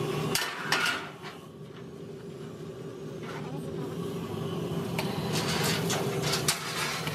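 A steady machine hum, with clusters of sharp metallic clinks and knocks about half a second to a second in and again about five to six and a half seconds in.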